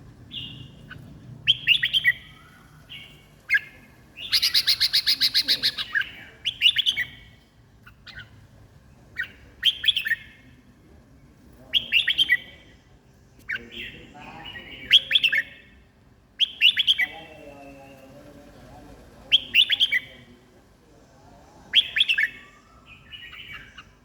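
Red-whiskered bulbul singing short, loud whistled phrases about every two seconds. It gives a harsh rapid rattle about four seconds in.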